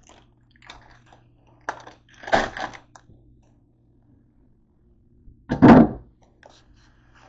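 Handling noises as a bagged head of lettuce is carried through the kitchen: a few short rustles and knocks, the loudest about five and a half seconds in, over a low steady hum.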